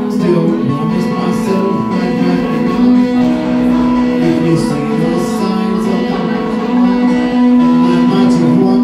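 A solo performer singing and strumming a guitar, with long steady held notes over the strumming.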